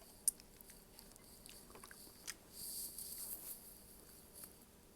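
Faint eating sounds: chewing and wet mouth clicks, with a sharp click about a third of a second in and a soft hissing suck or slurp about two and a half seconds in.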